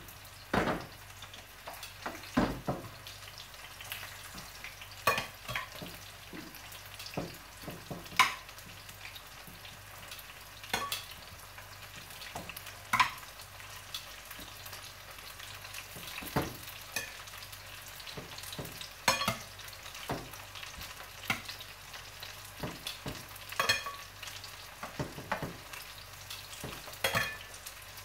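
Beef pieces sizzling as they sear in hot oil in a frying pan, being laid in one by one to brown. Sharp clacks of the metal tongs come every second or two over the steady sizzle.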